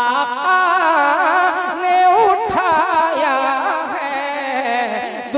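A man singing a naat, drawing out one long melismatic vowel with wide, fast vibrato, over a steady low tone that runs beneath.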